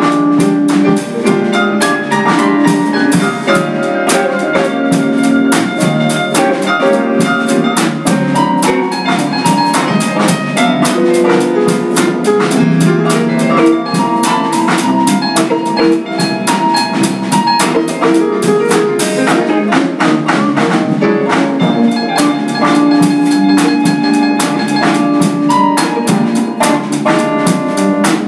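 Small band playing a funk groove: two electric guitars and an electric bass over a drum kit, with drum hits all the way through.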